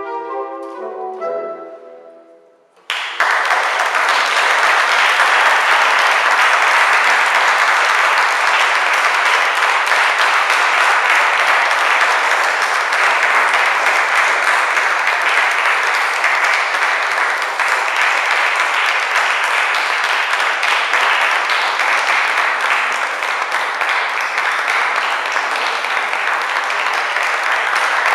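A saxophone quartet's closing chord dies away, then audience applause breaks out about three seconds in and carries on steadily.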